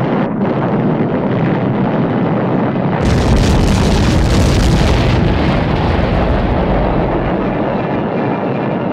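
Added sound effects of an atomic bomb detonation: a steady rumbling noise, then about three seconds in a sudden loud blast with a deep rumble that fades over the next few seconds.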